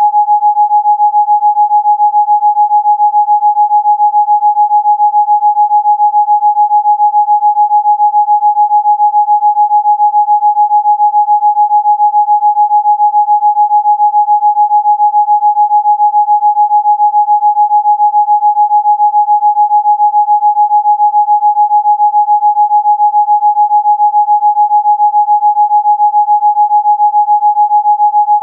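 A single steady electronic sine tone, played as a Rife frequency tone, pulsing fast and evenly in loudness.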